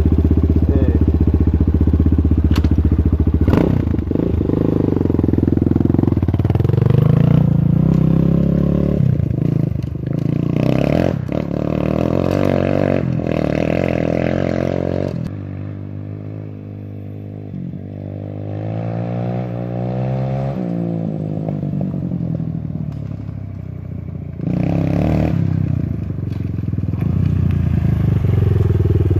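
250 cc four-stroke dirt bike engine being ridden, its pitch rising and falling with the throttle. It grows quieter through the middle stretch and comes back loud about 25 seconds in.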